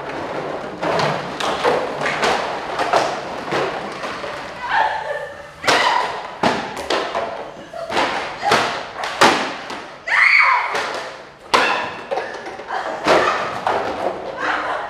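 Plastic bottles and plastic-sheet costumes being handled and struck: a run of sharp, irregular thuds and knocks, one or two a second, with plastic crinkling between them.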